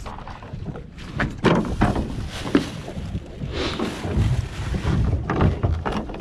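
Small fishing boat at sea: wind on the microphone and water noise, with a few irregular knocks and thumps on the boat.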